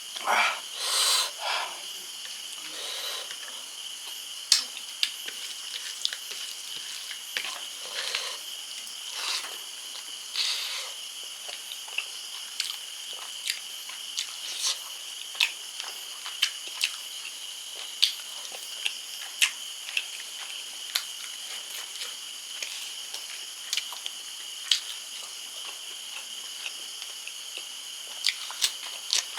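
Close-up eating sounds from a mukbang of spicy fish curry. A few slurps in the first few seconds are followed by sharp lip smacks and mouth clicks about once a second, over a steady high-pitched background hum.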